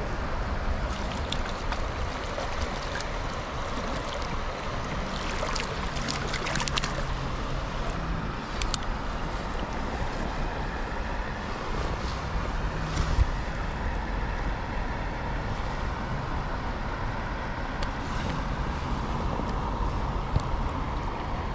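Shallow creek water running over gravel, a steady wash close to the water's surface, with a low rumble underneath and a few brief splashes.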